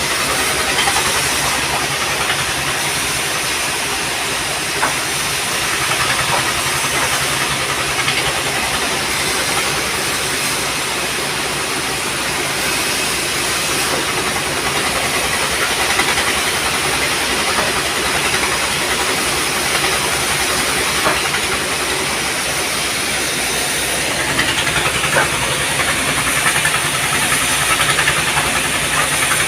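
Sawmill machinery running steadily: a constant engine drone with a broad hiss, and a few faint clicks.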